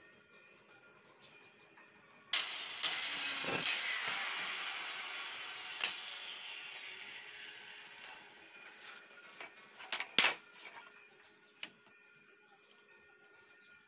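A handheld power tool runs on plywood for about five seconds, starting suddenly and fading steadily before it stops. A few sharp knocks of wooden strips being handled follow.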